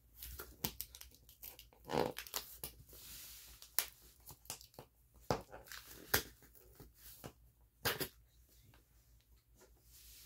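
Cardboard box being cut and pried open with a kitchen knife: scattered clicks, knocks and scrapes, with a short tearing scrape about three seconds in. The box is resisting being opened.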